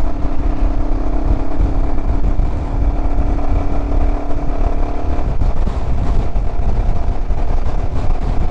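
Royal Enfield Himalayan 411's single-cylinder engine running as the motorcycle is ridden, under a heavy low wind rumble. The steady engine note changes about five seconds in.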